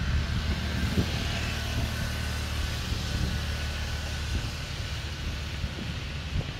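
A motor vehicle going past: a steady low engine hum with a hiss over it, loudest in the first few seconds and then easing off.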